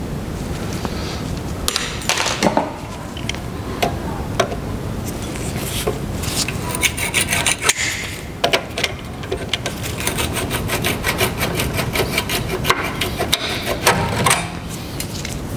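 Hand tools working on a car's brake caliper assembly: scraping and knocking, then a long run of rapid clicks through the second half.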